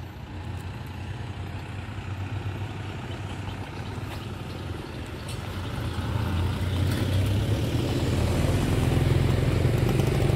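Road traffic passing on the street, a continuous flow of vehicles. A low engine rumble grows louder over the second half as a vehicle comes closer.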